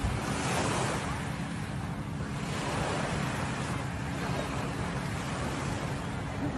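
Small waves washing onto a sandy beach, with wind blowing on the microphone; the wash swells and eases every second or two.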